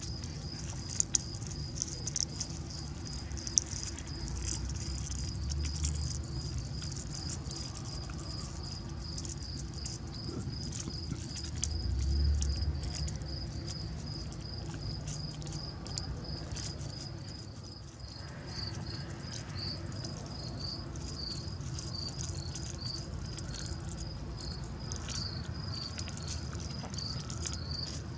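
Insect chirping in a steady, even rhythm, about three short chirps a second, over a low rumble, with a few sharp clicks in the first few seconds.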